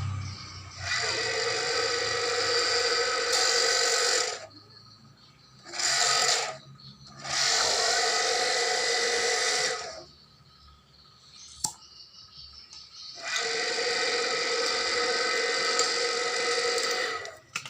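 Small electric motor running in four separate runs of a few seconds each, each starting and stopping abruptly, with a steady whine.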